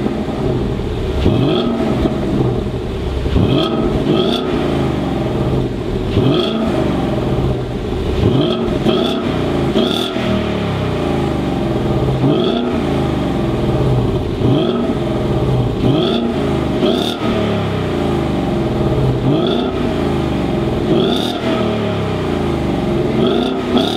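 Ford Mustang GT's V8 exhaust, with a Cobra Sport H-pipe centre section in place of the resonators, being revved over and over from idle. There is a sharp rising blip every second or two, some of them in quick pairs.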